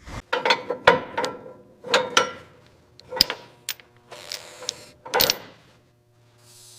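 A run of sharp clinks and knocks, irregularly spaced, several of them ringing briefly, like metal parts and tools being handled on a workbench.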